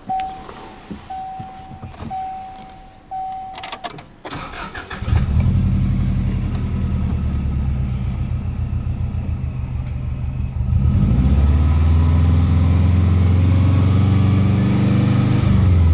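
A car's warning chime beeps about once a second, then the Subaru Impreza WRX STi's EJ20 turbocharged flat-four cranks and starts about five seconds in and settles into an idle. About eleven seconds in it is revved and held steady at roughly 3,000 rpm, dropping back just before the end.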